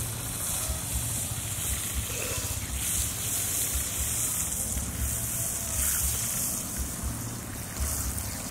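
Liquid sizzling and bubbling in a wide metal pan heated over a wood fire: a steady high hiss.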